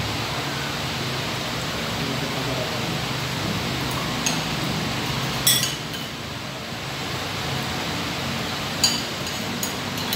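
Spoons and forks clinking against ceramic plates about four times, the loudest a little past halfway, over a steady background hiss.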